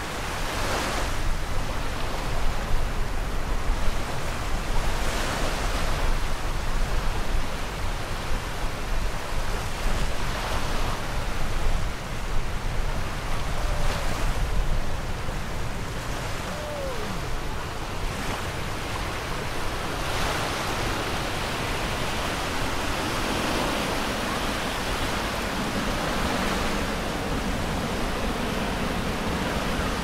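Small ocean waves breaking and washing up a sandy shore, the wash swelling and fading every few seconds, with a low rumble through the first half.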